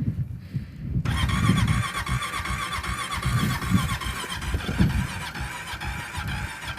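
A four-wheeler's electric starter cranking and whining, starting about a second in, with the engine turning over slowly and not catching: a weak, partly dead battery.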